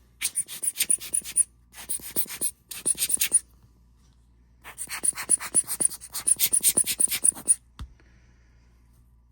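Rapid back-and-forth scrubbing strokes on a small watch part, about eight a second, in four bursts with short pauses between them, the last and longest lasting about three seconds. A single soft knock follows near the end.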